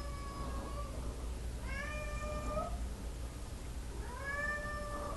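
A domestic cat meowing to be let in: a fading call at the start, then two drawn-out meows, each rising into a held note, about two seconds apart.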